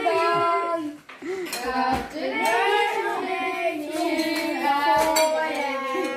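Children singing a birthday song together, with a woman's voice among them; the singing breaks briefly about a second in.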